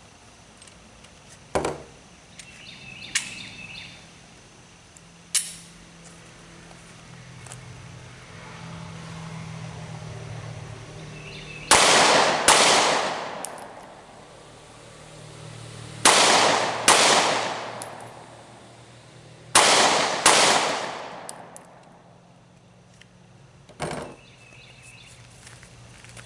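Glock 43 single-stack 9mm pistol fired as three double taps: six shots in three pairs, the shots in each pair about two-thirds of a second apart and the pairs a few seconds apart, each shot ringing briefly. A few lighter single clicks come before the first pair.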